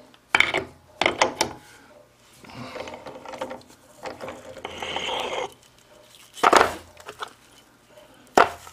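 Metal clanks and knocks from handling tools and the workpiece at a milling machine, several sharp strikes in quick groups. A rough noise lasts about three seconds in the middle.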